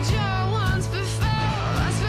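Background song with guitar over a steady low bass note, a melody gliding above it.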